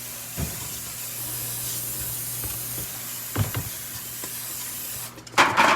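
Aerosol cooking spray hissing steadily onto a baking pan to grease it, cutting off abruptly near the end, with a couple of light knocks during it.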